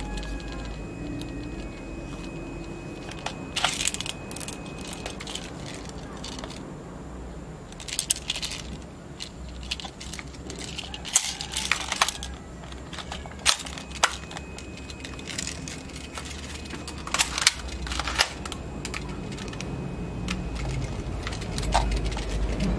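Custom SVT-40 airsoft spring rifle, built on a Crosman M47, being handled: about a dozen sharp clicks and clacks of its magazine and action, often in pairs about half a second apart.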